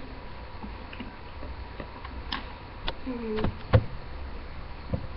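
Handling noise: a few light clicks and knocks spaced irregularly from about two seconds in, with a brief short vocal sound from a child about three seconds in.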